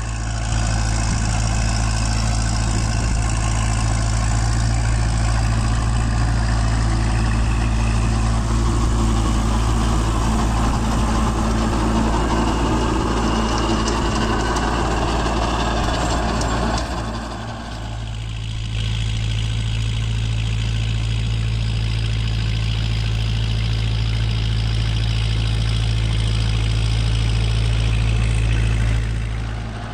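Kubota MU4501 tractor's diesel engine running steadily under load, driving a PTO rotary tiller through dry soil. The sound dips briefly about two-thirds of the way through, then carries on as before.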